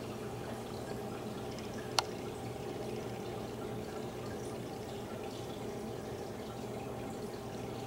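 Steady background hum and hiss with a few constant low tones, broken by one sharp click about two seconds in.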